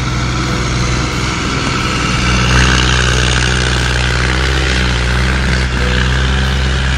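Diesel tractor engine running loud and steady while hauling a heavily loaded sugarcane trailer.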